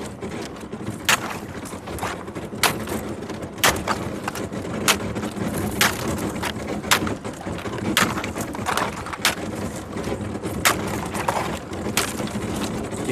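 Thin lake ice cracking and breaking as a boat pushes through it. Sharp cracks come about once a second, some close together, over a steady noise.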